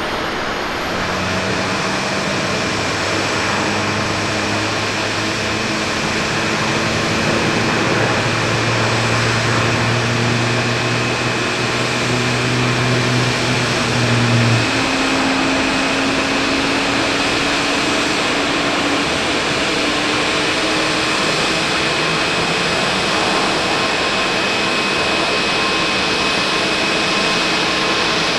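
Jet engines of a landing Boeing 777-300ER airliner: a loud, steady rush with low hums that slowly rise in pitch and stop about halfway through.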